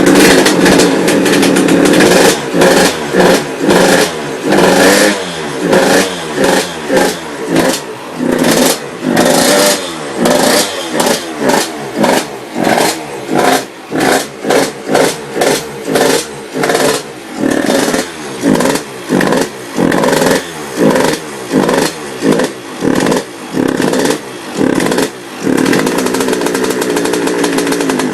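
Yamaha YZ85 two-stroke single-cylinder dirt bike engine running just after being started, revved in repeated quick throttle blips about once a second, then held steadier near the end.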